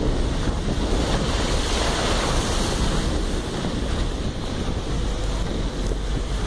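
Wind rushing over the microphone of a moving vehicle, as a steady rush over a constant low rumble of travel on a wet road.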